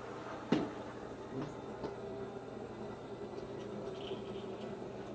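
Shark ION robot vacuum running: a steady motor and brush hum, with one sharp knock about half a second in and a few lighter knocks after.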